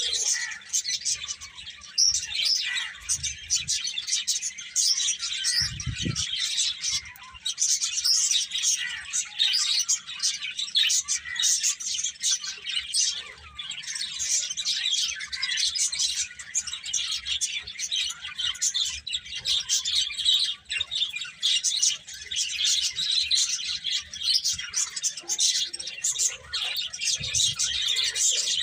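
A group of small birds chirping and twittering continuously in dense, overlapping high chirps, with a brief low thump about six seconds in.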